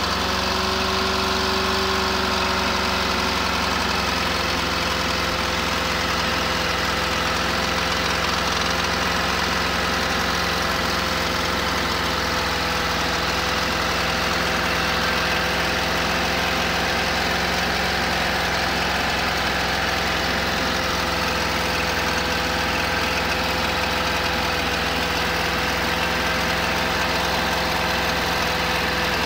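1972 Volkswagen camper's air-cooled flat-four engine idling, its speed settling slightly in the first few seconds and then running steady. It has a knock, the fault the owner is showing.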